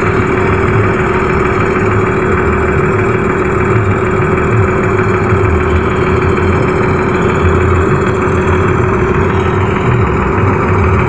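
Large bus diesel engine running steadily at low revs, with a steady tone held over the rumble.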